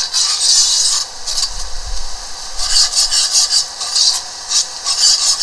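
A slotted spoon scraping and stirring a flour-and-oil roux on the bottom of a pot, in repeated strokes, over the sizzle of the bubbling roux.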